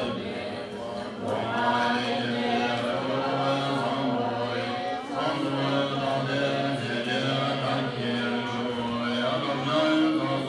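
Many male voices chanting together in a low, steady drone, Tibetan Buddhist ritual chant.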